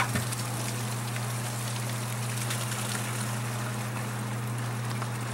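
Water pumped out of a boat pouring from a hose into a plastic bucket, over the steady hum of the running pump. A single sharp knock right at the start.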